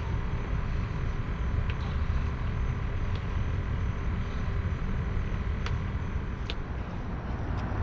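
A steady low rumble of outdoor background noise, with a few faint, light clicks in the second half.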